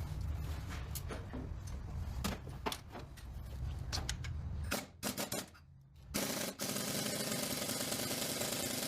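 Scattered metallic clicks and knocks of tools being handled, then about six seconds in a power tool starts and runs steadily with a fast rattle.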